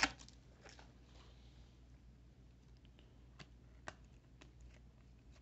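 Baseball trading cards being handled and flipped through, giving a few faint, scattered clicks, the sharpest just before four seconds in, over a quiet room.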